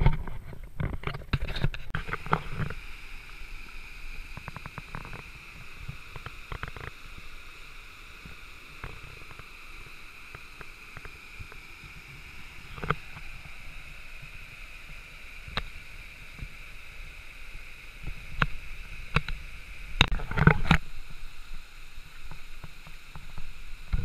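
Steady rushing hiss of a small waterfall and stream, with scattered knocks and scrapes of footsteps on river stones and rocks, most of them near the start and about three quarters of the way through.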